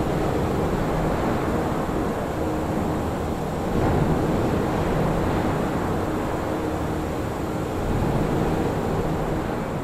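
General Motors factory floor ambience: a steady rumble and hum of running machinery under a dense wash of noise, swelling a little about four seconds in and again near the end.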